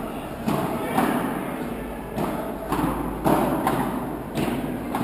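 Padel rally: the ball knocked back and forth by rackets and bouncing on court and glass, about seven sharp knocks over a few seconds, ringing in a large hall.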